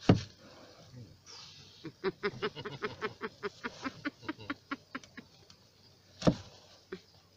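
A large knife hacking at something wrapped in paper inside a mesh bag, against a plastic kayak: a hard knock at the start, a fast run of about seven quick knocks a second, then another hard knock about six seconds in.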